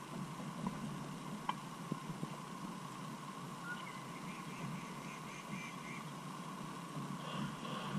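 Quiet open-air background noise with a few faint, sharp taps of tennis balls being struck, the clearest about one and a half seconds in, and a brief run of faint high squeaks a little past halfway.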